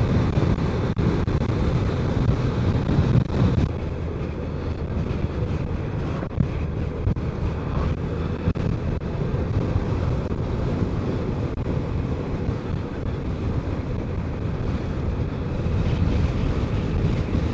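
Steady riding noise from a BMW K1200 motorcycle on the move: a constant wind rush over the microphone with engine and road hum underneath, holding even throughout.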